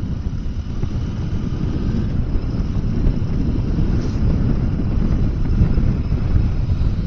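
Wind buffeting the microphone on a moving motorcycle, a loud steady rumble with road and engine noise underneath.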